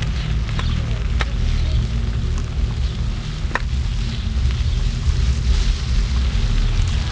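Steady low rumble of a vehicle moving along a rough dirt road, with wind noise on the microphone and a couple of short knocks.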